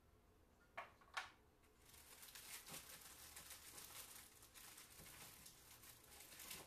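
Charcoal scratching across paper in quick shading strokes, a steady dry rasp for the last few seconds, after two short knocks about a second in.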